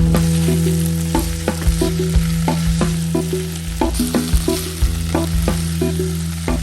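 Food frying in a pan with a steady sizzle.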